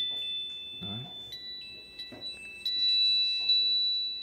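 Huawei FreeBuds 4 earbud playing its find-my-earbuds alert at maximum volume: a high, ringing chime of several held tones that step up in pitch a few times, then fades out near the end.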